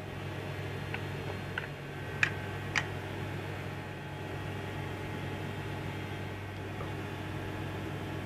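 Steady hum of the space station's cabin ventilation and equipment fans, with a few light clicks about one to three seconds in, the two loudest near the end of that run, as a foil drink pouch is fitted into the potable water dispenser.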